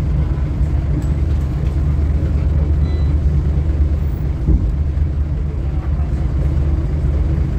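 Scania L94UB bus engine running, heard from inside the cabin as a steady low drone, with one brief knock about four and a half seconds in.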